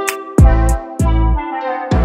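Background music with a beat: a deep bass drum that slides down in pitch on each hit, several times, over sharp high ticks and held chords.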